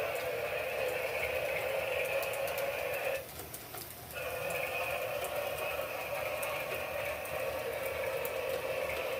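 Battery-powered toy steam train running around its track, its small motor and sound-effect speaker going steadily. The sound cuts out for about a second around three seconds in, then comes back.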